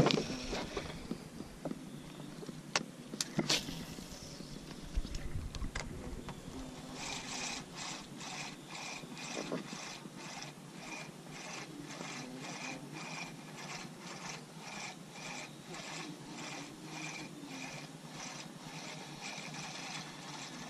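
A few sharp clicks, then from about seven seconds in a spinning reel cranked at an even pace, its rotor ticking about two or three times a second as a lure is reeled in.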